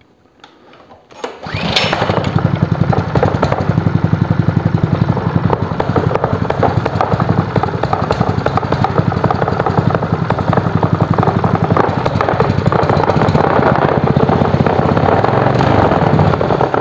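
Lifan KP230 8 hp single-cylinder four-stroke petrol engine turning over on its first start, a steady, rapid pulsing engine sound that begins about a second in, runs for about fifteen seconds and cuts off suddenly. The fuel may not yet have been drawn through fully, and the carburettor may not be adjusted.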